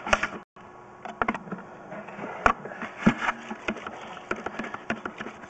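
Irregular clicks and knocks of a sewer inspection camera's push cable and reel as the camera is pulled back out of the drain line, over a steady low hum. The sound cuts out briefly about half a second in.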